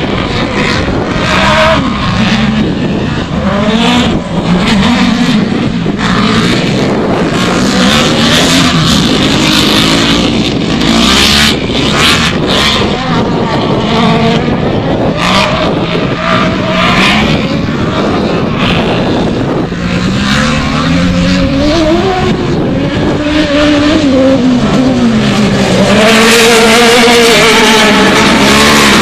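Autocross race cars running on a dirt track. Their engines rev up and down through the gears over a constant rush of noise, and they get louder near the end.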